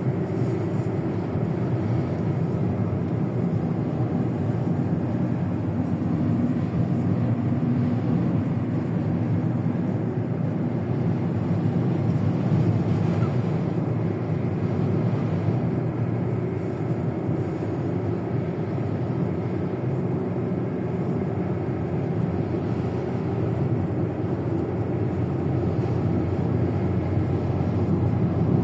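A car driving on a dusty road: a steady rumble of engine, tyre and wind noise that never breaks off.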